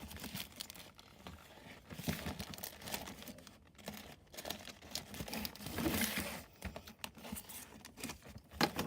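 Parcel packaging being handled and opened by hand, with irregular crinkling, rustling and tearing.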